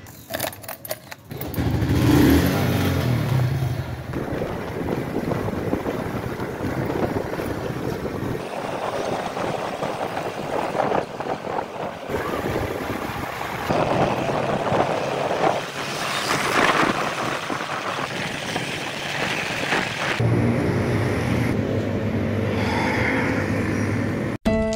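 Vehicle engine running as it travels along a road, under a steady rush of road and traffic noise. A few sharp clicks in the first second.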